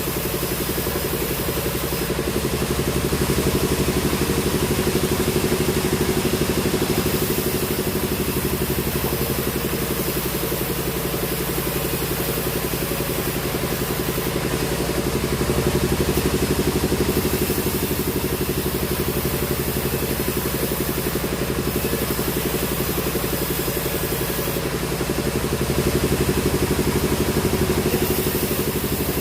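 Sawmill machinery running steadily with an engine-like hum, swelling slightly in loudness three times.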